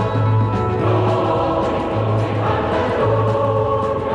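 Christian choral music: voices singing together over instrumental accompaniment with a pulsing bass line.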